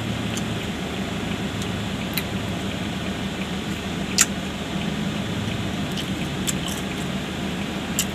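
Steady hum inside a parked car's cabin from its idling engine and air conditioning, with a few sharp clicks and rustles from eating out of a paper food box, the loudest click about four seconds in.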